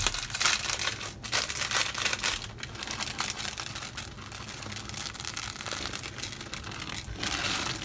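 Plastic packet of chocolate chips crinkling as it is shaken and tipped out over the slow cooker. The crinkling is busiest in the first couple of seconds and again near the end.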